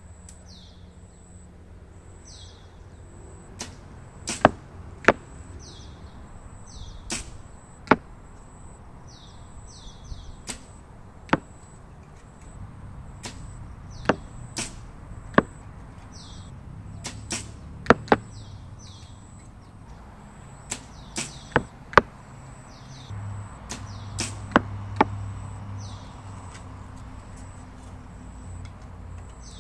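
Sanlida Hero X10 compound bows being shot in turn: about twenty sharp snaps of the strings releasing arrows, scattered irregularly and some in quick pairs. Short, repeated falling bird chirps and a steady high insect drone run underneath.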